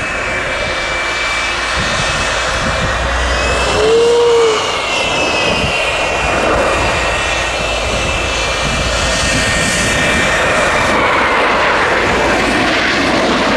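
F-104 Starfighter's General Electric J79 turbojet running at taxi power: a steady rushing jet noise with a high whine drifting slightly in pitch. About four seconds in, a short, loud tone rises and falls.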